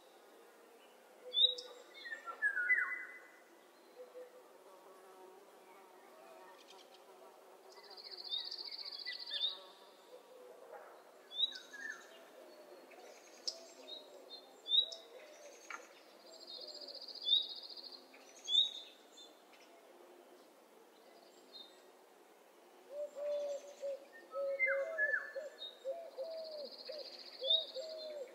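Recorded morning birdsong: several birds giving short high chirps, with a buzzy high trill about every eight to nine seconds, and low repeated calls that come in a long run near the end.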